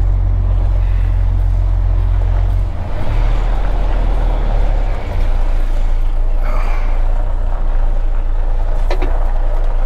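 Mercedes-Benz truck's diesel engine running steadily as the truck moves slowly, heard from inside the cab as a loud low hum. The engine note drops briefly about three seconds in and again about five seconds in.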